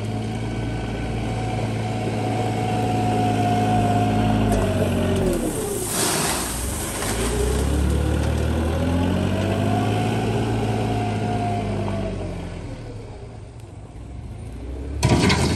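Small wheel loader's engine revving up and back down twice as it works. About six seconds in a brief rush of gravel pours out of the bucket, and near the end a loud gravel crunch as the bucket drives into the pile.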